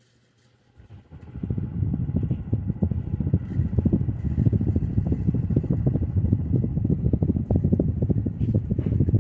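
42-inch Alaska ceiling fan starting up about a second in and running, with the air it moves buffeting the microphone in a loud, rapid, uneven low rumble.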